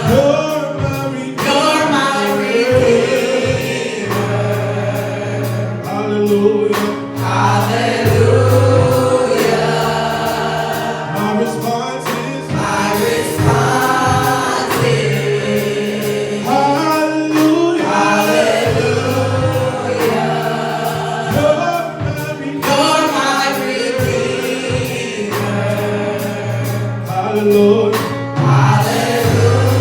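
Gospel music with a choir singing over a band with a steady beat and bass line.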